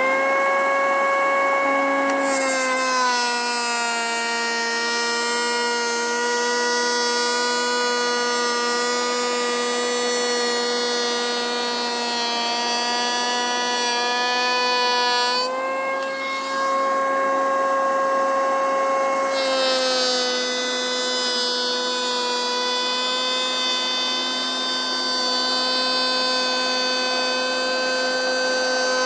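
Einhell cordless electric hand planer running with a steady whine. About two seconds in its pitch drops a little as the blades bite into the wood, and a cutting hiss joins it. Past the middle it runs free for a few seconds with a higher whine and no hiss, then drops in pitch again as it planes once more.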